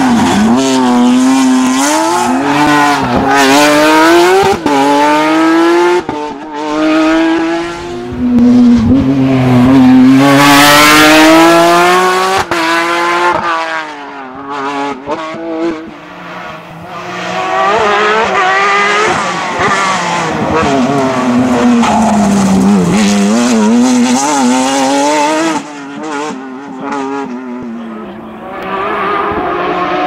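Rally cars at full speed on a tarmac stage, engines revving high and dropping back through quick gear changes as each car passes, several times over with abrupt breaks between passes. The first is a Porsche 911 GT3 rally car with its flat-six engine.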